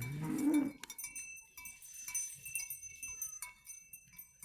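A bovine call, a short moo rising in pitch, in the first second. Faint small bells then jingle irregularly until the end.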